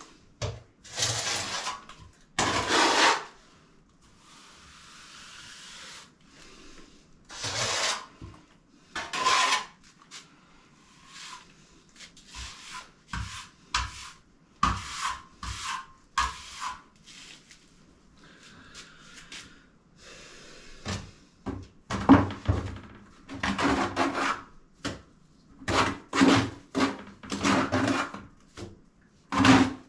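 Hand trowel spreading and scraping cement render across a wall in separate rasping strokes. There are a few long sweeps at first, then quicker, shorter scrapes in the last third.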